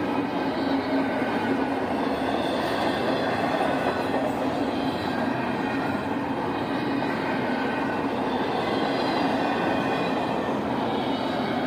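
A train rolling past on the track: the steady, continuous rumble of rail cars going by, with faint high squealing tones from the wheels.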